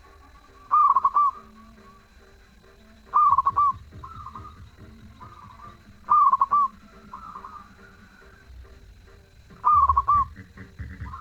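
Zebra dove (perkutut) singing: four loud, rolling coo phrases about three seconds apart, with softer coos in between.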